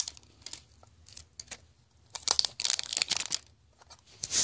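Protective packaging wrapping around a guitar pick tin being torn and crinkled open. There are scattered short rustles at first, then a longer burst of crinkling and tearing about two seconds in, and another just before the end.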